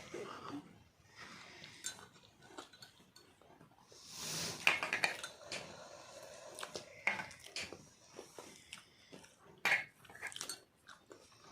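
Scattered clinks and knocks of plates and eating utensils while boiled eggs are eaten, with a louder rush of noise about four seconds in and sharp clicks near seven and ten seconds.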